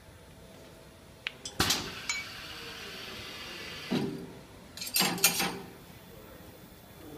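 Several knocks and clinks of hard objects: a loud knock about a second and a half in, then a steady hiss for about two seconds, a thud, and a short clatter a second later.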